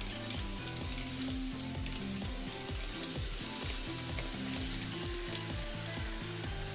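Background music with a steady beat and a moving bass line, over a continuous crackling hiss.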